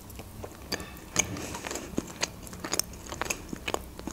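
A person biting into and chewing an open sandwich of bread topped with red fish: irregular wet mouth clicks and small crunches, several a second.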